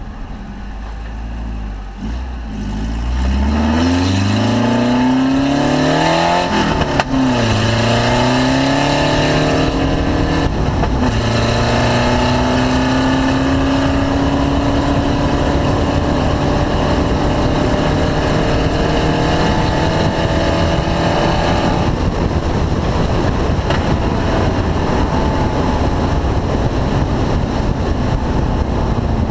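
Car engine on a race track accelerating hard, its pitch climbing quickly, dropping sharply at a gear change about seven seconds in, then pulling up slowly in a long steady climb before easing off about twenty-two seconds in.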